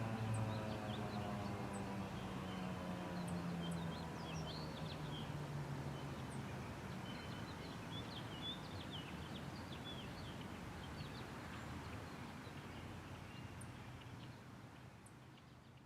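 Federal Signal 2001-SRNB electromechanical siren winding down at the end of its test, its drone sliding slowly lower in pitch and fading away. Birds chirp throughout.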